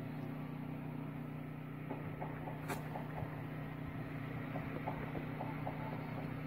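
A steady low mechanical hum, with a single sharp click about two and a half seconds in.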